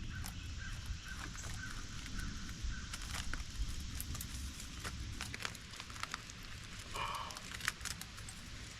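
Quiet outdoor background with scattered light clicks and taps, and a short bird call about seven seconds in; no power tool is running.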